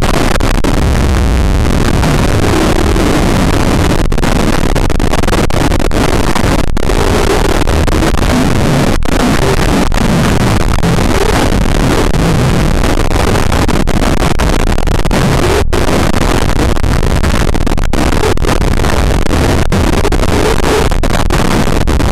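Audio from a 2012 Furby clip digitally overdriven into an 'extra loud earthquake' edit: continuous, very loud, clipped distortion and noise, with faint wavering pitched sounds buried in it. A few very brief dropouts cut through it.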